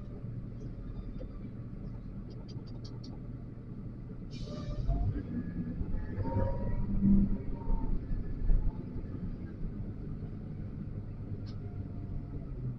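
XCMG LW500HV wheel loader's diesel engine running steadily, louder for a few seconds in the middle, with a few knocks.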